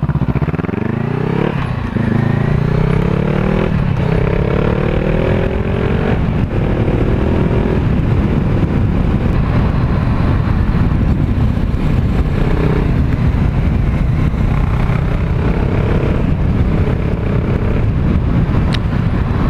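Honda CBR500R motorcycle's parallel-twin engine accelerating hard, its pitch climbing and dropping at about three gear changes in the first several seconds, then holding a steady cruising note with wind rush.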